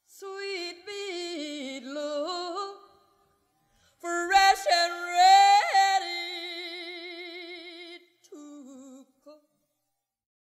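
A woman's voice singing unaccompanied, closing the song with drawn-out sung calls in three phrases: a first one with sliding, bending pitch, a louder second one that ends on a long held note with wide vibrato, and a short soft last one.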